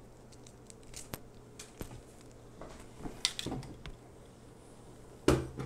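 Handling noise from an LED grow light's aluminium bar frame and its power cord on a wooden table: scattered light clicks and rustles as the cord is unwound, then a loud knock about five seconds in as the frame is set down.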